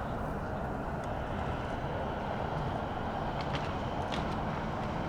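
Skateboard wheels rolling on concrete, a steady rumble, with a few short clacks about three and a half and four seconds in.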